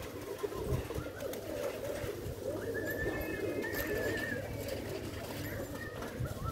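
Several pigeons cooing at once, a steady overlapping low warble. A thin, wavering higher whistle sounds over it for about two seconds midway, and again briefly near the end.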